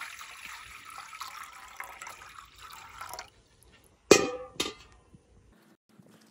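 Water poured from a steel pot into a steel bowl, a splashing trickle for about three seconds. About a second later come two loud metallic clanks with ringing, half a second apart, the first louder, as the steel vessels are knocked or set down on concrete.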